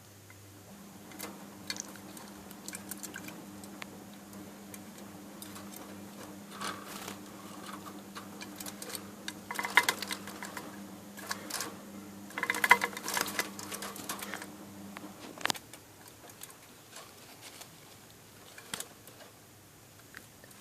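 Budgies bathing: scattered splashing and water patter, with two louder flurries of splashing in the middle. A steady low hum runs underneath and stops about three-quarters of the way through.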